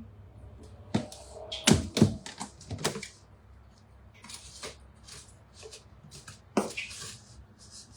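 Kitchen utensils knocking and clinking, with a run of sharp knocks in the first few seconds and one more near the end, and short scraping and scratching sounds in between.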